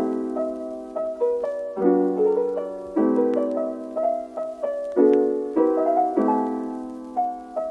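Background piano music: soft chords struck every second or two, each left to ring and fade, with lighter notes between them.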